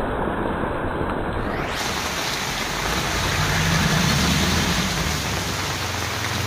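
Heavy rain pouring steadily, a dense even hiss. A low rumble swells and fades around the middle.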